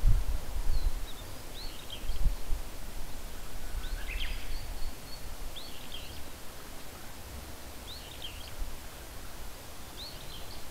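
A wild bird calling outdoors, a short high note repeated about every two seconds. Under it is a low rumble that fades after the first few seconds.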